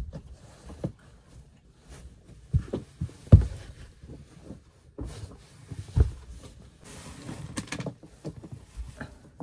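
A rug being unrolled and spread on a camper van's floor close by: fabric rustling and scraping with several dull thumps, the loudest about a third of the way in.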